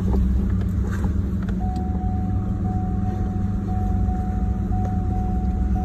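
Side-by-side utility vehicle running steadily as it drives along, a low engine drone with a thin steady whine joining in about a second and a half in.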